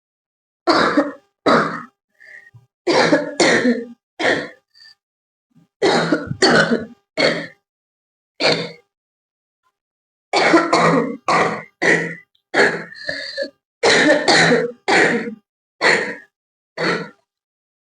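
A woman coughing on purpose, again and again: about twenty short, dry, forced coughs, mostly in quick pairs and threes, with a brief pause about halfway through.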